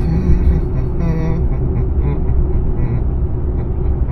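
A vehicle driving along, with a steady low rumble of engine and road noise.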